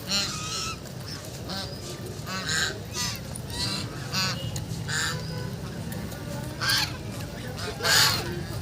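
Ducks calling repeatedly, a string of short calls about every half second to a second, the loudest near the end.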